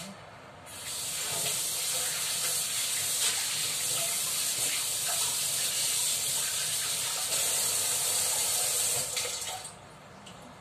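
A kitchen tap running in a steady hiss, turned on about a second in and shut off near the end.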